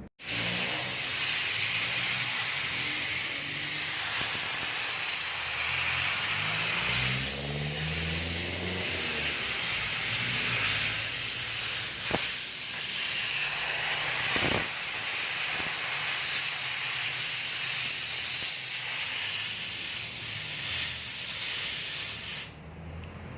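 Compressed-air blow gun hissing steadily as it blows dust out of a car's cabin air filter, with two short knocks midway. The hiss stops shortly before the end.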